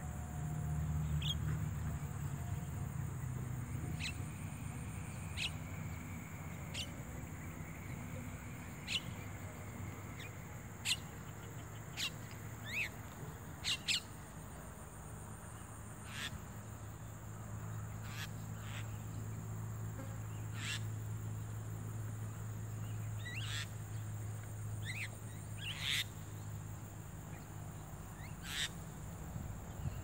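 Javan mynas giving short, sharp calls at irregular intervals, over a steady high hiss and a low hum.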